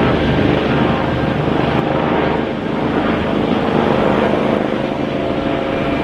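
Eurocopter AS365 N3 Dauphin twin-turbine helicopter flying past in the air: loud, steady rapid rotor beat over turbine noise.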